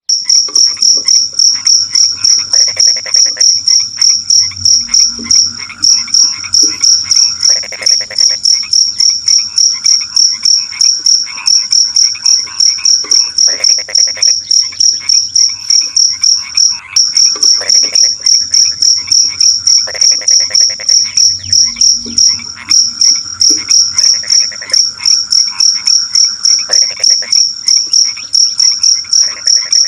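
A cricket chirping loudly in a steady, high-pitched rhythm of several chirps a second. Underneath, frogs croak in short trilled bursts every second or few.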